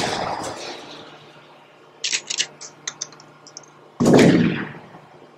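Intro sound effects: a sharp hit that dies away, then a rapid, uneven burst of gunshot-like cracks, then a loud boom about four seconds in that fades out.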